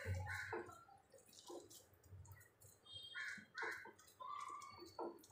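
Hands pressing and patting a coarse, moist ground-soybean and potato mixture into round cutlets: faint, irregular squishing and crackling. A few short faint calls are heard behind it, the clearest about three seconds in.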